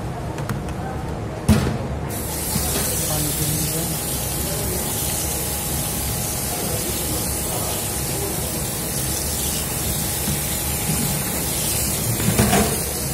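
Tap water running onto boiled noodles in a plastic colander to rinse them: a steady splashing hiss. It starts about two seconds in, just after a brief knock, and stops near the end.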